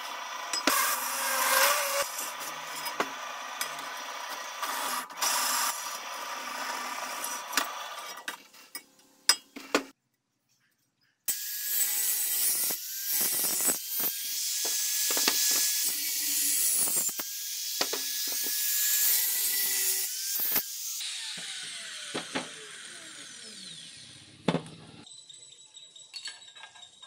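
Bench drill press boring through square steel tubing, with the motor's hum under the cutting noise. After a short break, an angle grinder cuts into the steel tube with a bright, hissing grind and a whining motor, then a motor winds down with falling pitch and a single sharp clack.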